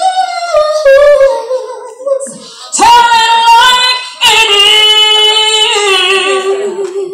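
A woman singing unaccompanied: sung phrases that slide between pitches, then a long note held for about three seconds near the end.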